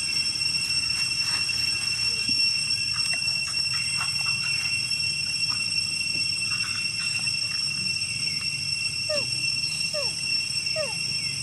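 Baby macaques giving short falling squeaks, three in quick succession near the end, over a steady high-pitched drone.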